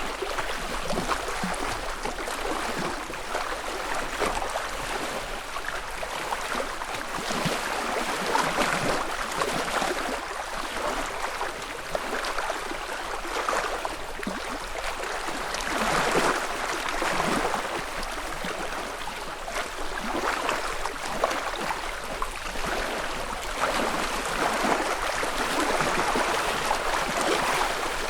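Small lake waves lapping and splashing gently against the shore. The water sound swells and eases irregularly every few seconds.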